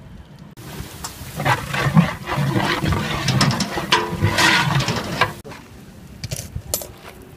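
Loud rushing sizzle of liquid hitting hot oil and fried onions in a large cooking pot. It starts about half a second in and dies down after about five seconds.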